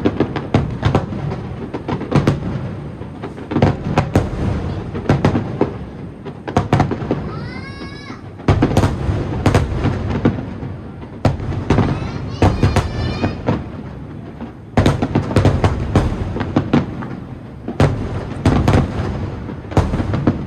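Aerial firework shells bursting in rapid volleys: repeated sharp booms and crackles, easing off briefly twice before picking up again. Two short pitched cries or whistles rise over the bangs near the middle.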